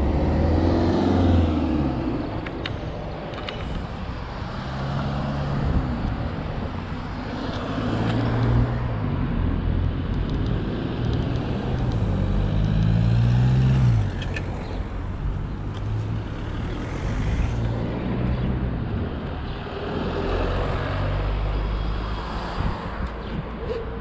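Urban street traffic: motor vehicle engines running and passing, a steady low hum with one engine rising and then falling in pitch about halfway through.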